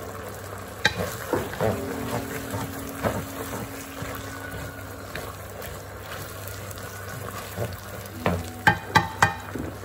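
Pak choy and beef sizzling in oyster sauce in a wok, stirred with a wooden spatula. The spatula scrapes and knocks against the pan now and then, with a quick cluster of knocks near the end.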